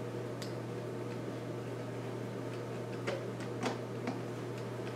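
Flathead screwdriver tightening a hose clamp on a rubber pipe end cap, giving a few faint clicks, most of them about three to four seconds in, over a steady low hum.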